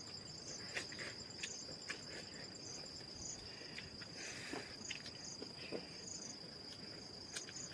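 Steady high-pitched insect trill, with scattered small clicks and taps.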